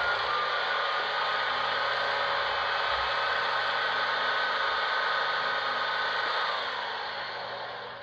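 Sampled air-compressor sound from a Zimo sound decoder in a model electric locomotive, cut in at random after brake release. It runs steadily with a faint whine and winds down over the last second or so.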